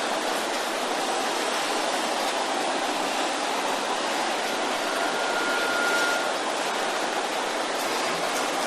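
A large congregation praying aloud all at once, a steady wash of many voices in which no single voice stands out.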